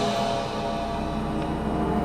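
Background music dying away, leaving a low steady hum beneath.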